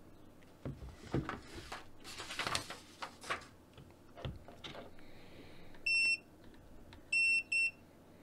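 GVDA GD166B clamp meter's non-contact voltage buzzer beeping, detecting voltage at the adapter: one high beep about six seconds in, then two more close together about a second later. Before the beeps, plastic clicks and rustling as the meter is moved against the yellow outlet adapter.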